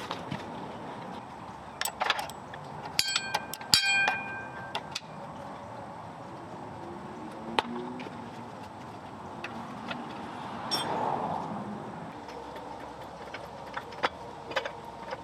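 Metal tools and parts clinking and knocking during hands-on suspension work: scattered sharp clicks, with a couple of ringing metallic strikes about three to four seconds in.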